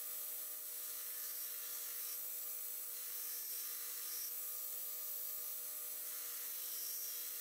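Belt grinder running steadily while a Damascus steel blade is held against the belt to grind a bevel: a constant motor whir with a grinding hiss.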